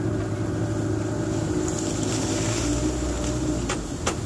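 A small boat's motor running steadily at low speed, with reeds brushing against the hull in the middle and a few sharp clicks near the end.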